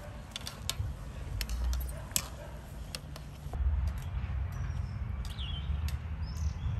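Pot of bagels boiling over a wood fire: scattered sharp pops and clicks over a low rumble, thinning out about halfway through, with a couple of short bird chirps near the end.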